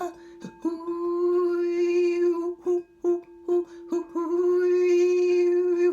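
A woman singing two long, held, wordless vocal tones over a steady sustained drone, with short plucked string notes in the gaps between the held tones.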